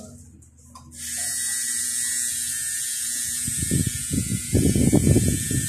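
Electric tattoo machine running with a steady high buzz that starts about a second in as the needle works into the skin. A louder stretch of low rustling noise comes in the second half.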